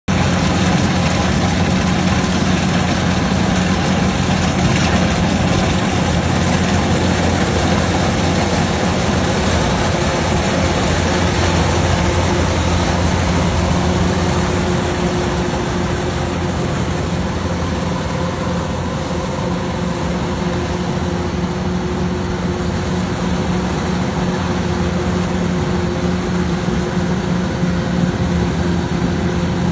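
Kubota rice combine harvester running steadily while harvesting, its diesel engine giving a continuous low hum.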